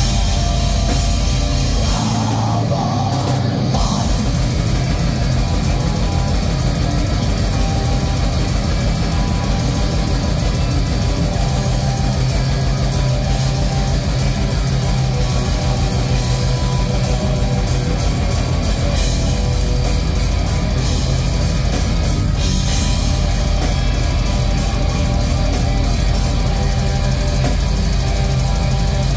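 A live heavy rock band playing loud distorted electric guitars and bass over a drum kit. The drums thin out briefly about two seconds in, then come back with a fast, steady pounding beat.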